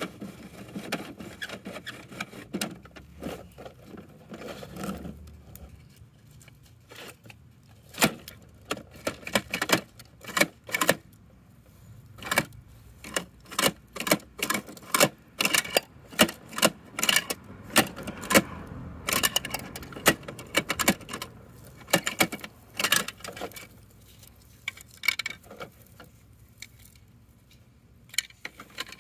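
Plastic clicking and clacking from a toy side-loader garbage truck's lift arm being worked by hand to raise and lower a toy bin. It is a long run of sharp clicks, several a second at times, with quieter gaps.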